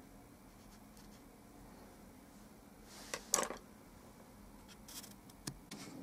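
Paintbrush bristles scraping across oil-painted paper: one short scratchy stroke about three seconds in, then a few faint taps near the end.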